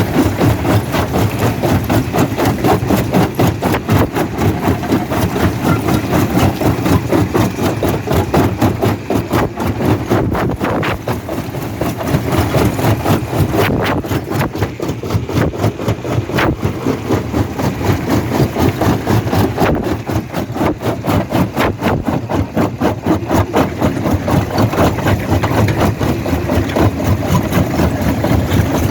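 Stone crushing machine running steadily: a heavy engine sound with a fast, regular pulsing beat and a clatter of repeated knocks.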